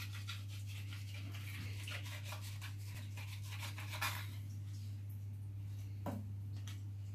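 Knife blade scraping the flesh off a fish fillet on a wooden cutting board: quick rasping strokes in the first couple of seconds, then a few slower scrapes, over a steady low hum.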